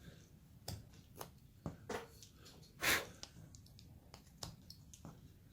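Carving knife cutting into basswood: a series of short, sharp slicing cuts and scrapes, with one longer, louder stroke about three seconds in.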